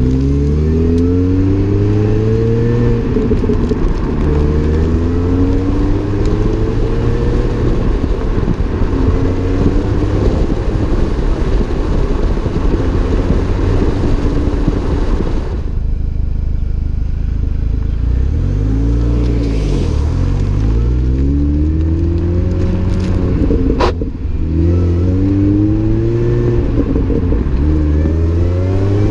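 Supercharged four-cylinder engine of a 2005 Mini Cooper S (R53), with an Alta cat-back exhaust, Alta intake and a 17% smaller supercharger pulley, accelerating through the gears on the road. The engine note climbs over and over and drops back at each shift, with a faint whine rising alongside it. About halfway through it backs off and the pitch falls, then it pulls up through the gears again; one sharp click is heard near the end.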